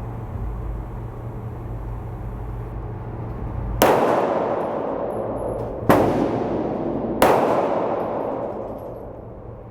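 Three loud, sharp bangs about two seconds, then a second and a half, apart, each ringing out and fading over a second or two. A steady low hum runs before the first bang.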